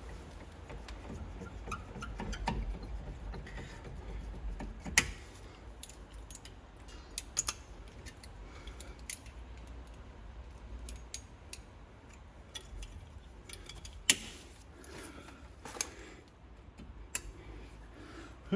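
Hand tools and small metal brake parts clinking and tapping: a string of separate sharp metallic clicks over a low background rumble.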